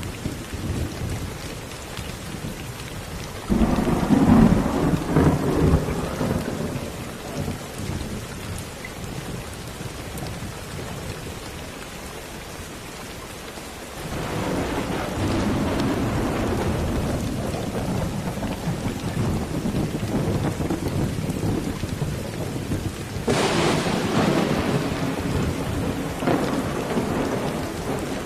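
Steady rain with rumbling thunder. A roll comes suddenly about three seconds in and fades over several seconds, another swells up about halfway through and holds on, and a third breaks near the end.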